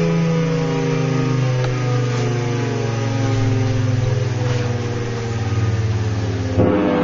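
Federal Signal Thunderbolt tornado siren sounding its chord, chopped into rapid pulses by its chopper. The chord slowly falls in pitch, then jumps abruptly to a louder, higher chord near the end.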